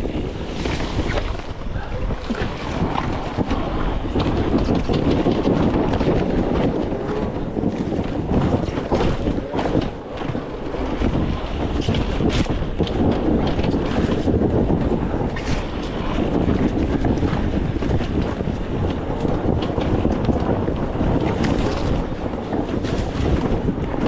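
Wind buffeting the microphone over a dirt bike's engine, with a few sharp knocks.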